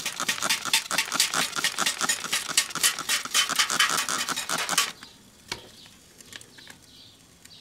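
Hand trigger spray bottle squirting water rapidly into a hot, burnt-out microwave to cool it, several squirts a second, stopping suddenly about five seconds in. A few faint clicks follow.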